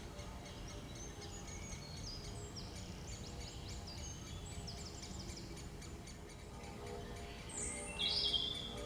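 Woodland birds singing: a run of quick, high twittering notes, with one louder call about eight seconds in, over a low, steady background rumble.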